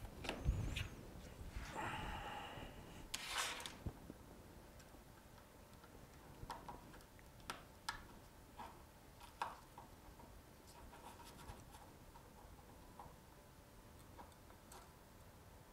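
Faint handling sounds of a phone logic board and flex cable in gloved hands: a low thump and rustling in the first few seconds, then scattered small clicks and taps.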